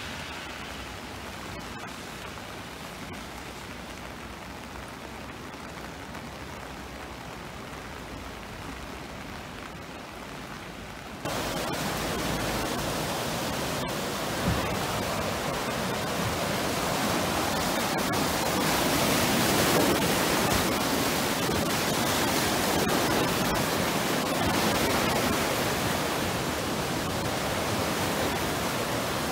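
Rushing brown floodwater of the overflowing Kyll river, a steady noise of churning water that jumps suddenly louder about eleven seconds in. There is a brief thump about fourteen seconds in.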